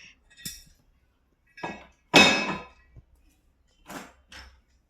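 Handling noises of hard objects. There are a few knocks, then a loud clattering rattle with a slight ring about two seconds in that lasts about half a second, then a click and two shorter knocks.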